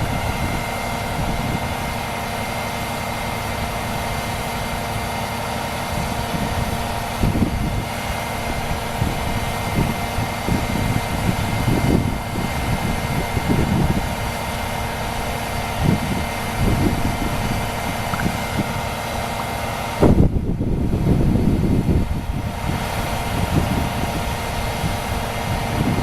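A vehicle engine idling steadily, with irregular low rumbles coming and going over it.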